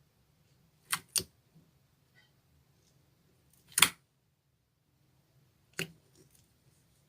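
Clear slime being handled, giving four sharp clicks: a quick pair about a second in, a louder one near the middle and another later on.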